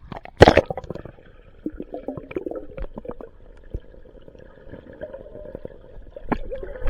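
Swimming-pool water splashing and gurgling, with a loud splash about half a second in and another near the end.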